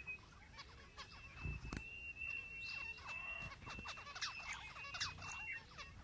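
Faint outdoor nature ambience: many short, scattered animal chirps over a thin, steady high-pitched whine.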